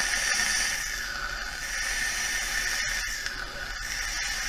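Steady hiss of a long draw through an OBS Engine rebuildable tank atomizer, its single coil firing at about 70 watts, followed by the vapour being exhaled.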